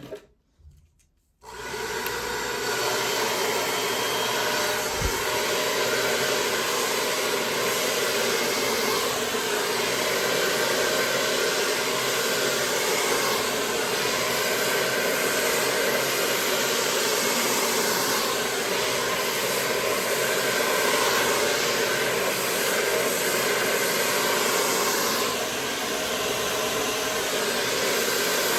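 CONFU ionic salon hair dryer switching on about a second and a half in, then blowing steadily. It dips slightly for a moment near the end.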